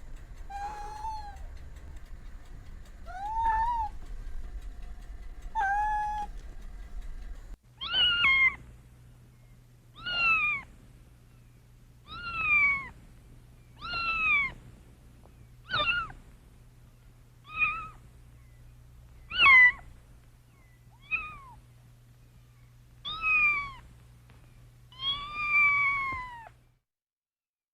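Domestic cat meowing: three lower meows, then a higher-pitched cat meowing about eleven times, one every couple of seconds.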